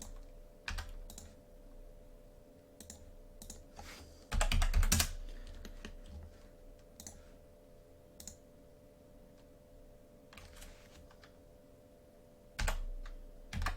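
Computer keyboard typing and clicking: scattered single keystrokes, with a quick run of keys about four seconds in and another near the end, over a faint steady hum.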